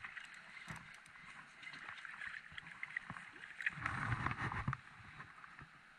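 Spinning reel being wound in, its small clicks over a steady hiss of flowing water, with a louder rush of water and handling noise about four seconds in.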